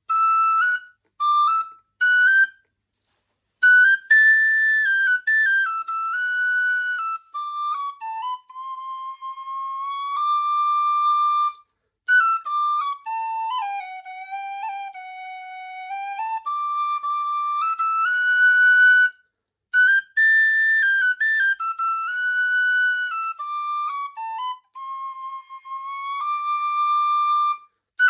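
A slow tune played on a tin whistle: single held notes that step and slide between pitches, with a few short pauses in the playing.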